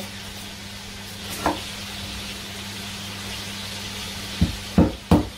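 Chicken nibbles sizzling in oil in a frying pan, a steady hiss. A knife strikes a wooden chopping board once about a second and a half in, then chops ginger three times in quick succession near the end.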